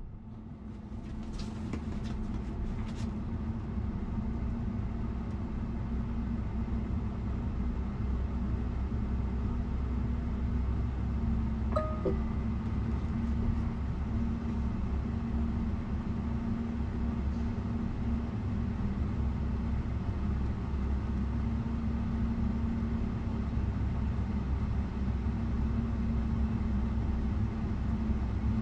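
Steady hum and low rumble of a Tesla Model Y's climate-control fan running in Dog Mode, heard inside the closed, parked cabin; it builds up over the first few seconds, then holds level. A brief squeak about twelve seconds in.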